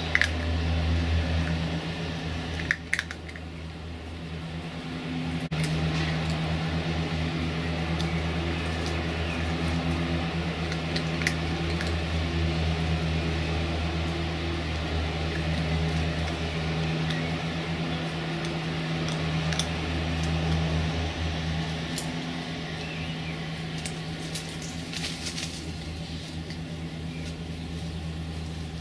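A steady low mechanical hum, like a motor or fan running, easing off in the last few seconds, with a few faint clicks and rustles over it.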